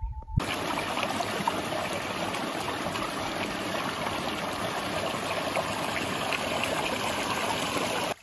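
Water running in a small mountain stream, a steady rushing and splashing that starts suddenly about half a second in and cuts off suddenly near the end.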